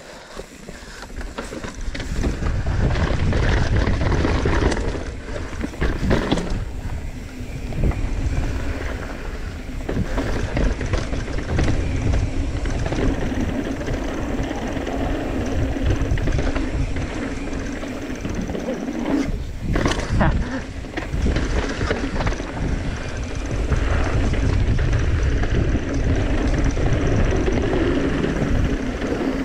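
Mountain bike riding downhill: tyres rolling and rattling over dirt and wooden boardwalk, with the bike's chain and parts clattering and a heavy rumble of wind on the microphone. It grows louder over the first few seconds as the bike gathers speed.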